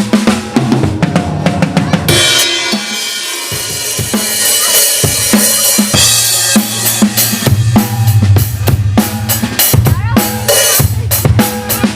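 Live band music led by a drum kit: kick drum, snare and cymbals over a low sustained bass line, played loud through a sound system at a sound check. A cymbal wash rings out about two seconds in, and the drumming grows busier after the middle.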